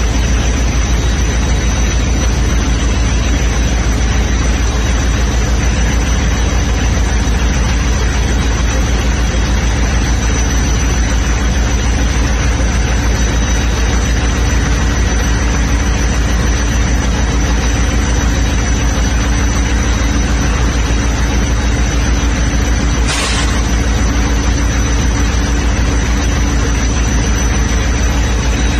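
Steady low hum of the halted train's diesel locomotive idling, with a thin high whine held over it. There is one brief knock about twenty-three seconds in.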